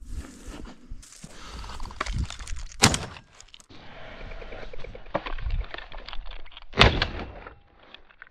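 Rustling and crunching from a hunter moving on foot in snow, broken by two sharp, loud knocks about four seconds apart.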